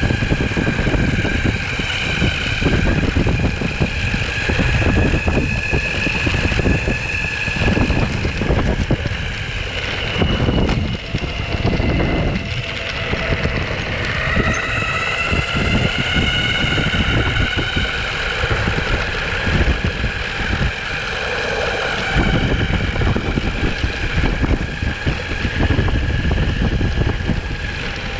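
Onsra Black Carve belt-drive electric skateboard riding along: the motors and belt whine, the pitch rising and falling with speed, over wind buffeting the microphone and the rumble of its rubber wheels rolling.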